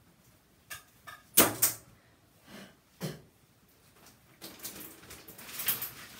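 A series of sharp knocks and bumps, the loudest a pair about a second and a half in and another near three seconds, then a couple of seconds of rustling and scuffling toward the end, as of someone moving about and handling things in a small bathroom.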